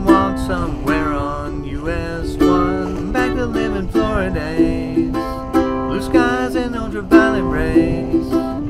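Background music: a light tune with plucked strings and a bending melody line.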